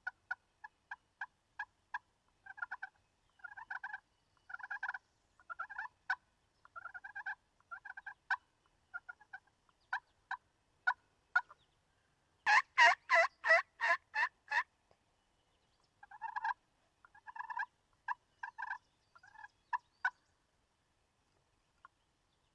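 Turkey calling: strings of short yelps and clucks, then a louder rapid run of about eight notes lasting two seconds just past the middle, then more short calls.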